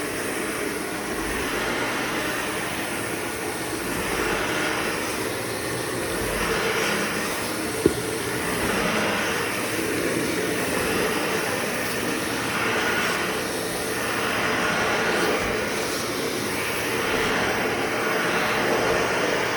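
An old vacuum cleaner running on a rug with a steady whooshing noise that swells and fades every two seconds or so, as it is pushed back and forth. A single short click about eight seconds in. The motor is fine; this is just the way it sounds on the rug.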